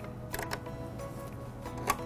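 Soft background music, with a few small clicks as a metal bobbin case is pushed back into a sewing machine's bobbin area; the sharpest click comes near the end.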